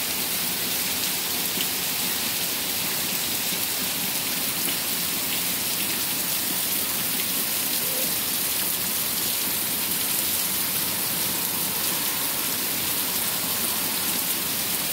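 Heavy rain falling in a steady, even hiss onto a waterlogged lawn, pavement and flooded street.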